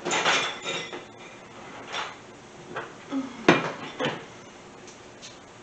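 Dishes clattering and knocking as a large ceramic mixing bowl is taken out from among other crockery: a burst of clatter at the start, then a few separate knocks, the loudest about three and a half seconds in.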